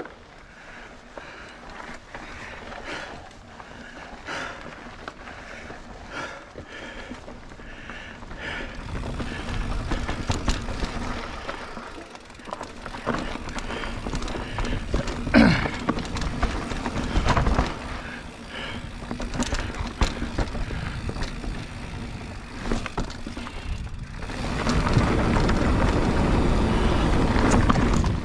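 Polygon mountain bike being ridden over dirt singletrack: tyre noise with scattered clicks, knocks and rattles from the bike, getting louder partway through, then a loud, steady rush near the end.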